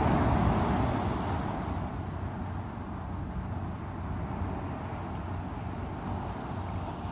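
Sea waves breaking on the shore: a surge of surf at the start that eases after a second or two into a steady wash with a low rumble.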